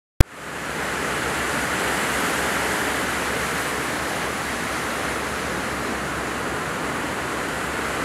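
Steady rushing of sea surf foaming over a rocky shore, rising in quickly just after a short click at the very start.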